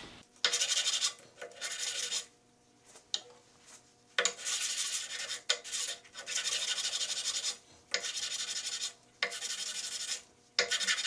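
Small wooden block rubbed back and forth by hand on a sheet of sandpaper laid flat, in a series of scratchy runs about a second long with short breaks between. The sanding lightly takes the fuzz and burr off the band-sawn edges.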